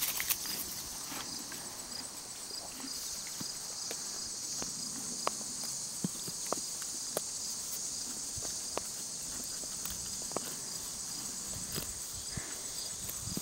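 A horse walking on pasture grass: a few irregular hoof knocks, mostly in the middle of the stretch, over steady high-pitched chirring of insects.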